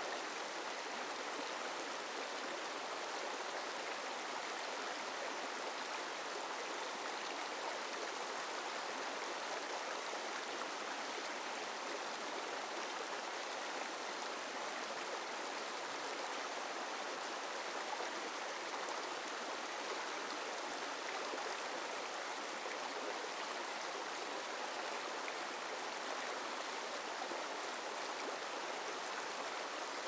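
Shallow rocky stream running over stones, a steady rush of water through small riffles.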